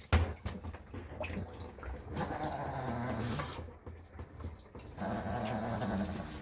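Shih Tzu grumbling in a low voice, two drawn-out vocalizations a couple of seconds apart.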